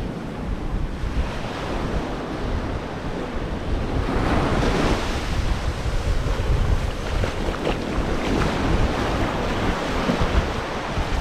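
Ocean waves washing onto the beach, a steady wash of surf with a stronger surge about four seconds in, and wind buffeting the microphone with a low rumble.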